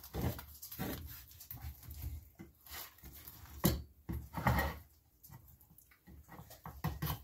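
Kitchen knife cutting between the bones of a rack of cooked pork ribs on a wooden cutting board: irregular rasping and scraping strokes through the meat, with a sharp knock of the blade a little over halfway.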